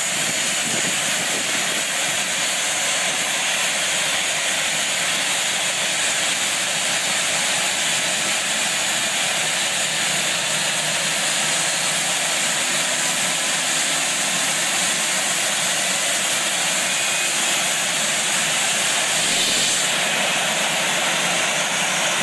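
CFM56 turbofan engine of a Boeing 737 running steadily on the ground on its first start: a constant rushing hiss with a faint high whine.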